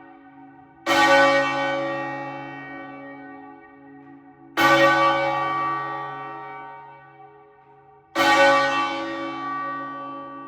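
A large church tower bell rings three times, about three and a half seconds apart, each stroke loud at first and slowly fading. The strokes have the same pitch.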